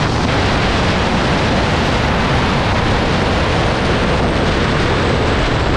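Small JetCat model-jet gas turbine in an RC car running at high power during a speed run: a loud, steady jet roar with a thin, faint high whine above it.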